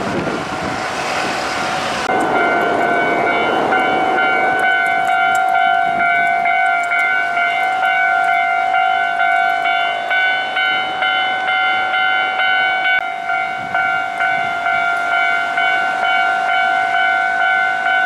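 Japanese level-crossing alarm ringing in a steady, regular ding-ding, over the rumble of a Hankyu train passing the crossing, which dies away within the first few seconds.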